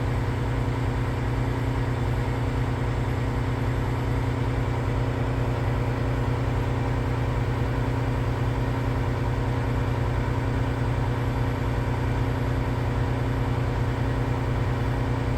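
Volvo A40 articulated haul truck's diesel engine running steadily at constant speed while it performs a DPF regeneration.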